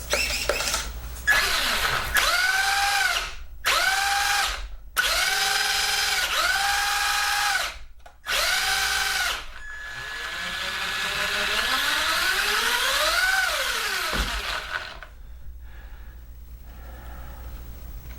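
Traxxas Fiesta ST rally car's brushed 550 electric motor and drivetrain whining under throttle: about five short bursts that each rise quickly in pitch, hold and drop, then one slower run up in pitch that peaks and cuts off near the end.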